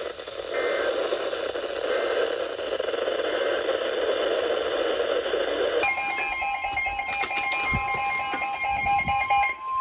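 Radio receiver static hiss, then about six seconds in an emergency alert tone cuts in abruptly: several steady pitches sounding together, the alarm that precedes a severe weather warning broadcast.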